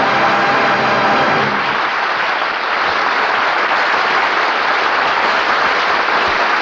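A choir and orchestra hold a final chord that ends about a second and a half in, then a studio audience applauds steadily.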